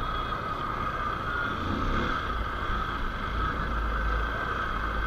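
A motorcycle running steadily at low speed, engine hum mixed with road and wind noise, heard from a camera mounted on the bike.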